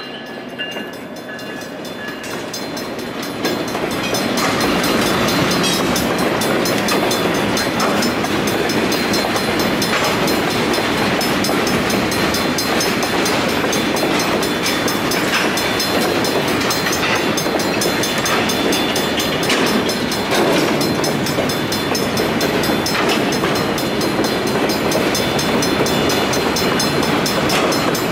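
Freight cars rolling over a road crossing: a steady rumble of steel wheels on rail, with repeated clicks as the wheels cross the rail joints, growing louder about three and a half seconds in. The crossing's warning bell rings along with it.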